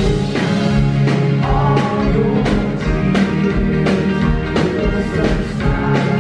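Live pop-rock band playing: strummed acoustic guitars, electric guitar and a steady drum beat, with two voices singing into microphones.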